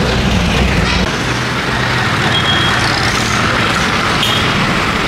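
Busy city road traffic: engines of cars, vans and buses running close by. A low engine hum changes about a second in, and a few brief high-pitched tones sound over the traffic.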